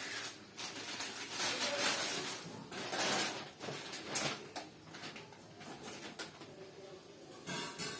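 Plastic carry bags and gift wrapping rustling and crinkling in irregular bursts as clothes are pulled out of them, busiest in the first half and again briefly near the end.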